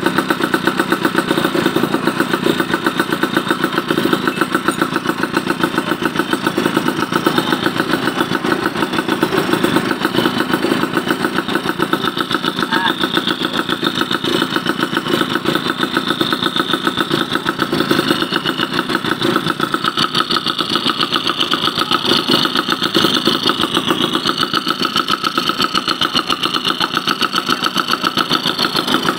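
Yamaha F1ZR's two-stroke single-cylinder engine running at a steady idle after a carburettor service, its rapid firing pulses even, with a slight change in tone about two-thirds of the way through.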